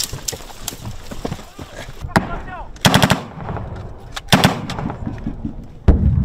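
Bursts of automatic gunfire: three short bursts about a second and a half apart, the last one the loudest. A few single shots sound in the first second.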